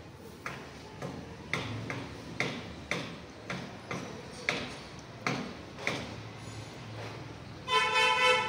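Water glugging out of the neck of a tipped plastic bottle as dirty water is poured into a homemade sand-and-charcoal filter, about two glugs a second. A vehicle horn honks near the end.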